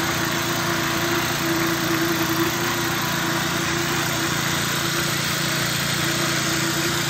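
Concrete vibrator running steadily, its flexible shaft sunk in freshly poured footing concrete: an even engine hum with one strong, slightly wavering tone.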